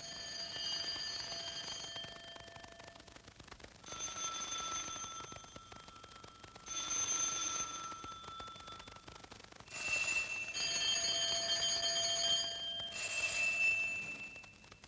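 Stylised telephone ringing: bell-like rings in about six short bursts of a second or two each, the pitch shifting from one burst to the next.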